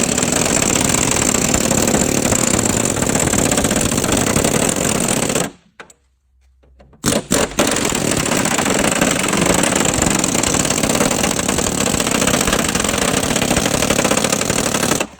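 Loud, continuous power-tool noise with a fast rattling texture, breaking off abruptly for about a second and a half partway through and then starting again.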